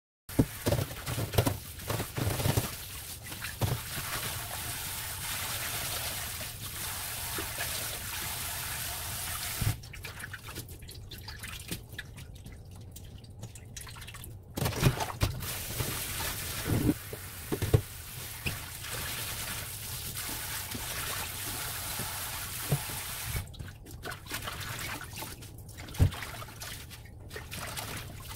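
Tap water running and splashing in a stainless-steel sink while spinach leaves are rinsed and handled in a plastic colander and a steel bowl. The flow drops away briefly a couple of times, and there are small splashes and knocks from the bowl and leaves.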